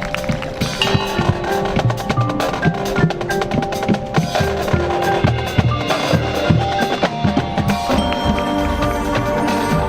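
High school marching band playing a percussion-heavy passage: rapid snare and bass drum strokes under held wind notes.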